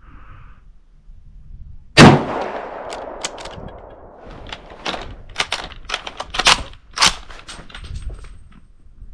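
A single loud rifle shot from an 8mm Mauser straight-pull Mannlicher rifle about two seconds in, with a long fading echo. A few seconds later there is a run of sharp metallic clacks and clicks as the straight-pull bolt is worked to eject the case and chamber the next round.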